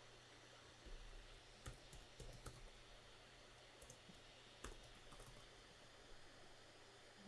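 Faint, scattered clicks of computer keyboard typing and mouse clicks over quiet room tone, most of them in the first half to two thirds.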